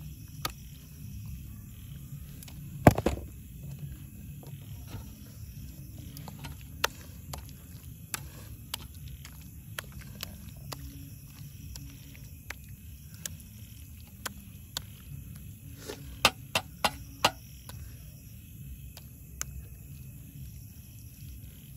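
A metal spoon scooping and spreading thick, sticky thothal on a plate, with scattered sharp clicks of the spoon against the plate and pot, the loudest about three seconds in and a quick run of four around the middle of the second half, over a steady low rumble.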